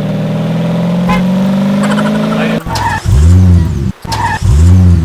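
Electronic engine sound effect from a toy race car: a steady engine note that slowly climbs, then two quick revs that rise and fall, each cut off abruptly.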